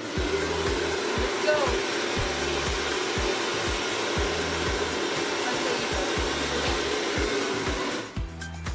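Handheld hair dryer blowing steadily, cutting off suddenly about eight seconds in. A steady beat of background music runs underneath.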